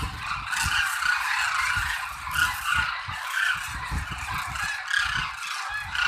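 Large flock of demoiselle cranes calling, a dense chorus of many overlapping calls, with irregular low rumbling gusts underneath.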